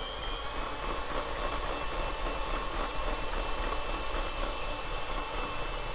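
Electric hand mixer running steadily with a faint whine, its twin wire beaters whipping egg yolks and sugar until creamy in a small ceramic bowl.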